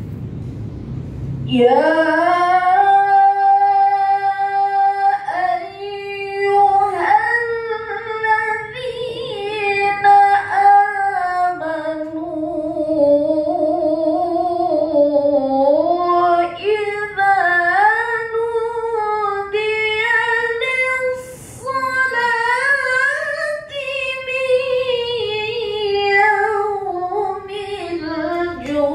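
A woman reciting the Qur'an in melodic tilawah style into a microphone: long held notes alternating with ornamented melismatic runs, beginning about two seconds in, with a short break for breath a little past the middle.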